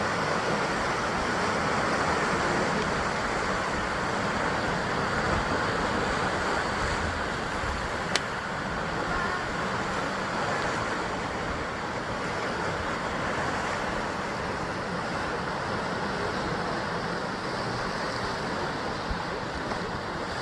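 Sea waves surging and breaking against the basalt columns of a rocky shore, a continuous wash of surf that swells and eases slowly. One sharp click about eight seconds in.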